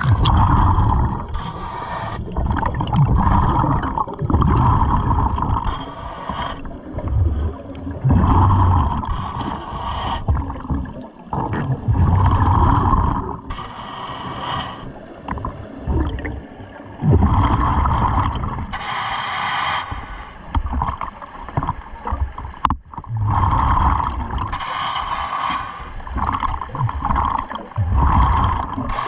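A scuba diver breathing through a regulator underwater: a hissing inhalation about every four to five seconds, each followed by a rumbling, gurgling stream of exhaled bubbles.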